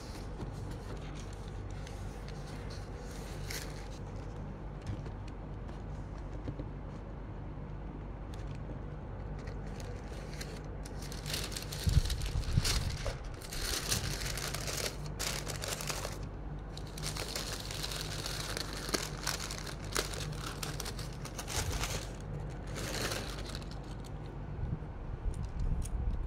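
Tissue paper rustling and crinkling as it is unfolded in a shoebox, in bursts from about ten seconds in, over a steady low hum.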